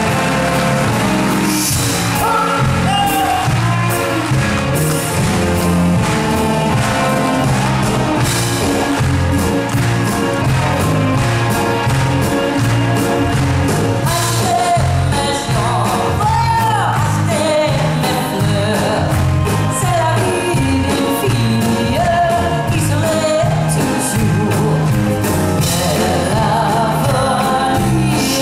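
Live pop band playing a song with a steady beat, electric guitars and keyboards, and a man and a woman singing together.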